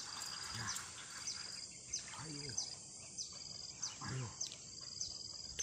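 Insects droning in a steady high buzz, with a short chirp repeating about every 0.7 seconds. A low, falling call from another animal repeats about every two seconds.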